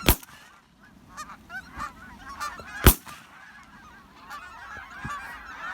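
Two shotgun shots, the first right at the start and the second about three seconds later, over a flock of Canada geese honking; the honking grows thicker near the end.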